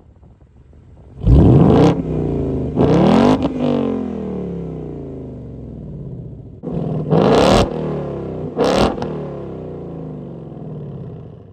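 2019 Ford Mustang GT's 5.0 V8 through a resonator-deleted Roush H-pipe exhaust, free-revved four times in two pairs, each sharp blip of throttle falling back toward idle.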